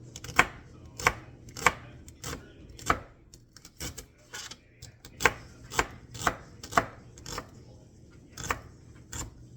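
Knife chopping celery on a cutting board: sharp, separate strokes about one to two a second, with a short pause about three-quarters of the way through.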